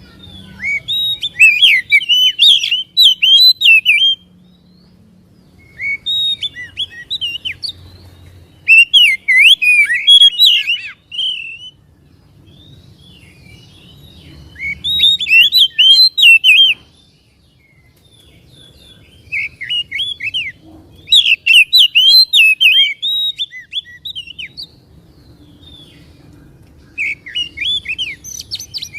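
Oriental magpie-robin singing loud phrases of rapid, varied whistled notes, each phrase a few seconds long with short pauses between, about six phrases in all.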